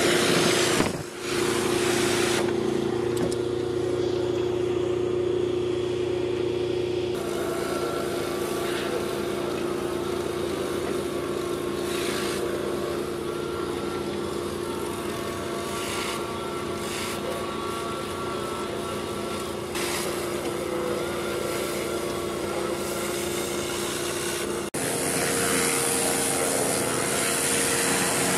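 High-pressure washer running steadily, its motor and pump humming under the hiss of water jets from a rotary surface cleaner scouring roof slates. The sound drops out briefly about a second in and turns to a brighter hiss near the end.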